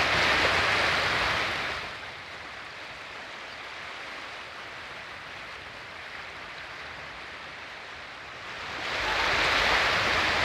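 Steady rushing water ambience with no distinct events, dropping to a quieter level about two seconds in and swelling back up near the end.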